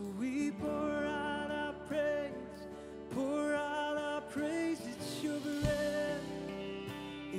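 Worship music: a voice singing a slow worship song over steady instrumental accompaniment.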